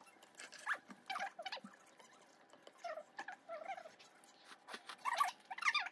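Short, high-pitched whimpering squeaks, a few at a time in the first half and then several in quick succession about five seconds in.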